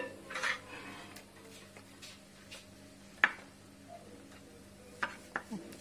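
A few light clicks and taps of a metal spoon against a clay cooking pot. The sharpest click comes about three seconds in and a short cluster comes near the end, over a faint steady hum.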